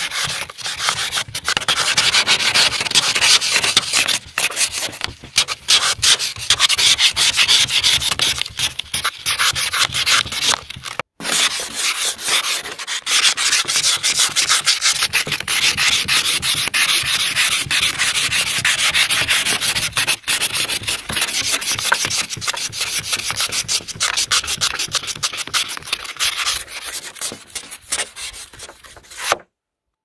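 Ice being scraped off a car windshield in quick, repeated scratchy strokes, with a short break about eleven seconds in. The scraping stops abruptly just before the end.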